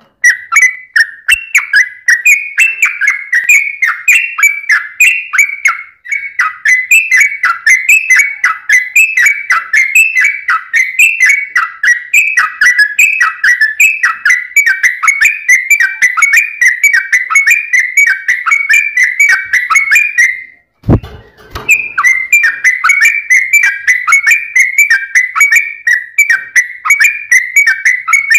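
Yellow-vented bulbul (trucuk) singing a fast, nearly unbroken run of short whistled notes, several a second, with a brief break and a low thump about 21 seconds in.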